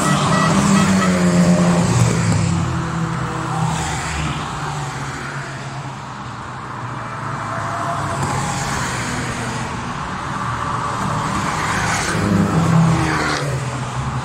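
A procession of Italian cars, among them Alfa Romeo saloons, driving past one after another, engines running at moderate speed. Each pass swells and fades, the loudest about two seconds in and again near the end.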